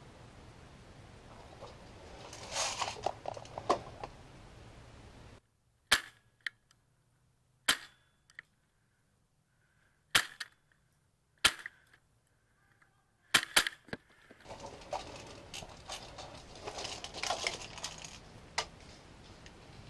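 Polar Star high-pressure-air airsoft DMR firing single shots: about six sharp cracks spaced one to two seconds apart, over a near-silent background. Before and after the shots, rustling and knocking of gear being handled.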